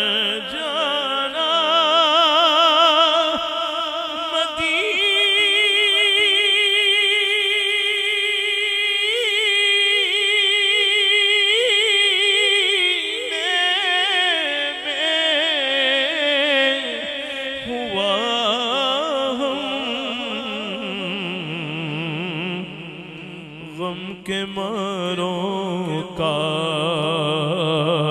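A man's solo voice reciting a naat in long, drawn-out melismatic phrases with heavy vibrato. In the second half the melody sinks to a much lower register.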